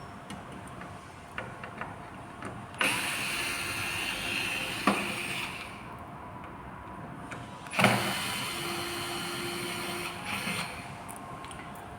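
Electric screwdriver backing out the display panel's screws, its motor running in two steady bursts of about three seconds each that start and stop abruptly. A sharp knock, as the bit seats, opens the second burst, with small ticks in between.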